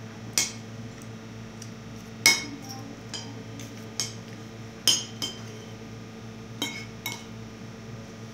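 Plates and cutlery clinking during a meal: about eight sharp, irregular clinks, the loudest about two and five seconds in, over a steady low hum.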